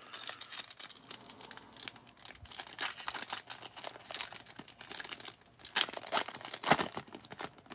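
Foil wrapper of a 2022 USA Baseball Stars and Stripes card pack crinkling as it is worked open by hand, with sharp tearing rips just before six seconds in and again about a second later.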